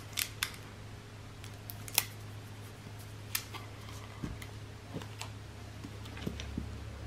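Scattered light clicks and taps of hands handling a plastic bottle rig and small tools, one sharp tick every second or so, over a steady low hum.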